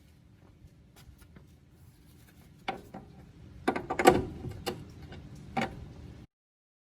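Hammer tapping a front strut up into the wishbone: a few sharp metal strikes, a quick cluster of the loudest just past the middle, then two more spaced blows. The sound cuts off abruptly near the end.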